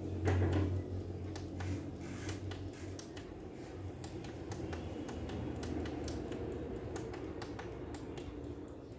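Panasonic Quintrix CRT television's power supply ticking, about three to four ticks a second, over a low hum: the set is stuck in protect mode and will not switch on.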